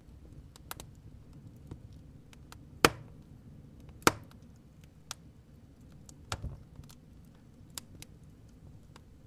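Wood fire crackling: irregular sharp pops and snaps over a low steady rumble, the two loudest pops about three and four seconds in.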